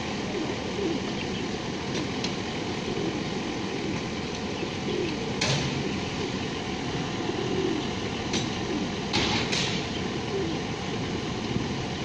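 Feral pigeons cooing, short low coos repeating every second or so over a steady background noise, with a few brief rushing sounds about halfway through and again near the end.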